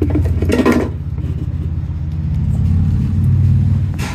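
Steady low mechanical rumble, with a brief clatter about half a second in and a sharp click near the end.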